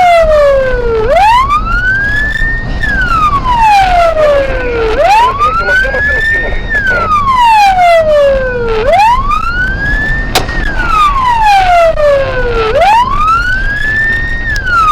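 Police car siren on a slow wail: each cycle rises for about two seconds, holds briefly, then falls for about two seconds, repeating almost four times, over a steady low rumble. A single sharp click cuts through about ten seconds in.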